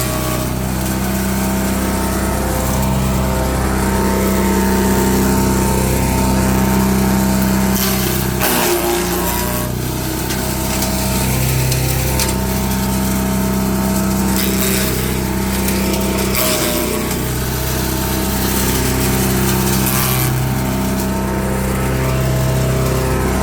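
Wood chipper running steadily with a constant engine note. About nine seconds in and again about sixteen seconds in, the engine note dips under a short burst of noise.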